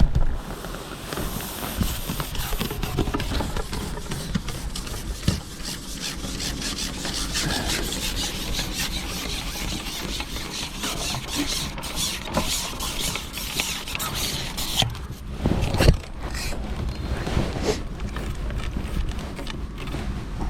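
Continuous rubbing and scraping with scattered clicks, from fishing gear being handled, and a sharper knock about three-quarters of the way through.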